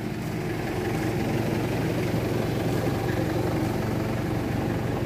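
Steady low mechanical hum of workshop machinery running without a break.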